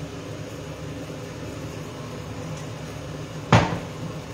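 A glass olive-oil bottle set down on a wooden chopping board with a single sharp knock about three and a half seconds in, over a steady low mechanical hum.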